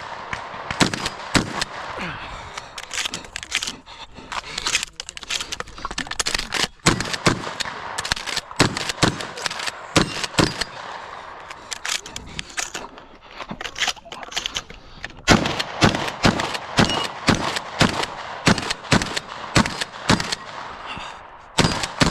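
Shotgun fire on a practical shooting (IPSC) stage: shots come in quick strings, often several a second, with short breaks between strings. The firing thins out past the middle and is loudest in the later part.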